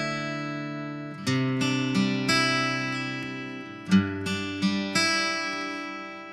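Enya EF-200 solid-top acoustic guitar, played with a pick through its Fishman pickup. Picked chord notes ring out, in a run of strokes just after a second in and another about four seconds in, each run fading away.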